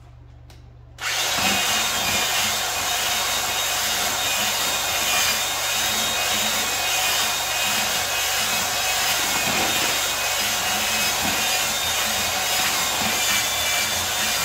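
Electric drill with a mixing paddle running steadily in a bucket, mixing grout to a thick paste. It starts about a second in.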